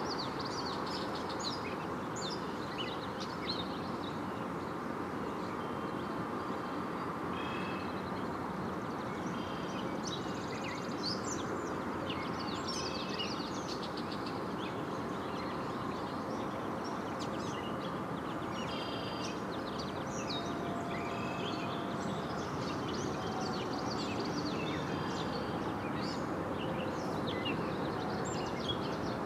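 Small birds chirping and calling on and off, many short notes, over a steady low rushing background noise.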